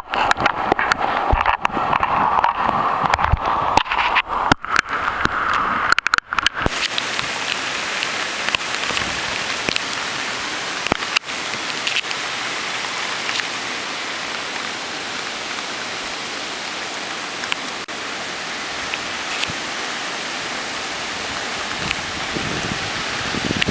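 Hurricane rain falling steadily as an even hiss. For the first six seconds or so the sound is choppy and cuts out briefly several times, then it settles into a steady hiss.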